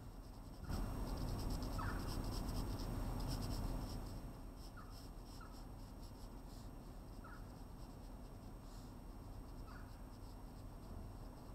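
Pencil scratching on paper as shading strokes are worked into a drawing. The strokes are louder for about three seconds starting near the first second, then go on softer and steady.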